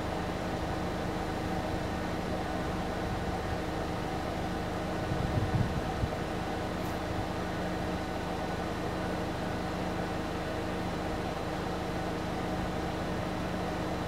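A steady mechanical hum with a few constant tones over a noisy hiss, and a brief low bump about five and a half seconds in.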